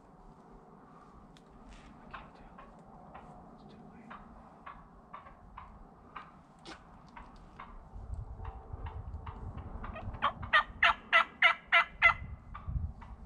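Turkey calling: a quick run of about seven loud yelps, about four a second, near the end, after several seconds of faint scattered chirps and clicks.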